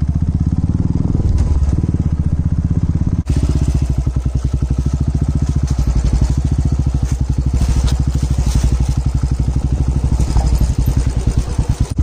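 Royal Enfield motorcycle engine running at a steady, even thump while being ridden, with a brief break about three seconds in.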